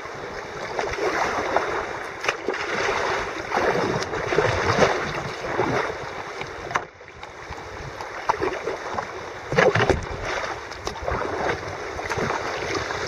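Sea kayak being paddled: paddle blades dipping and splashing with water washing along the hull, swelling and easing roughly once a second.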